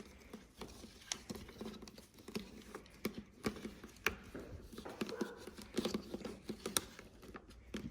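Quiet handling noises: scattered small clicks and soft rubbing as hands press and work a strip of sticky sealant around the taillight holes in a car's trunk panel.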